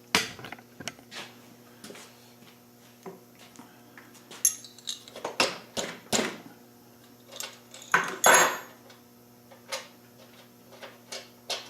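Metal tools and hardware clinking and clanking irregularly during mini bike assembly work, with the loudest clanks about eight seconds in, over a steady low hum.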